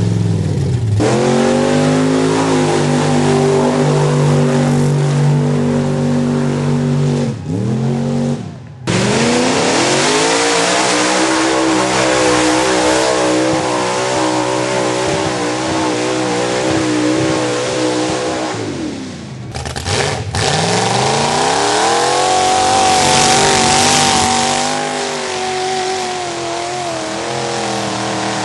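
Mud bog trucks' engines revving hard as they power through a mud pit, three runs in a row. In each run the engine pitch climbs and then holds at high revs. The sound breaks off abruptly about eight seconds in and again about eleven seconds later as the next truck's run begins.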